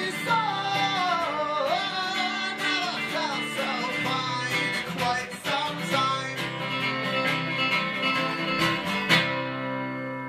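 Two acoustic guitars strumming the song's closing bars, with a gliding melodic line over them in the first few seconds; the strumming stops on a final chord about nine seconds in, which rings out and fades.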